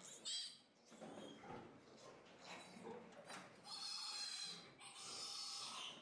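Piglet squealing as it is handled and set into a castration restraint: a short high squeal right at the start, handling noises, then two long high-pitched squeals in the second half.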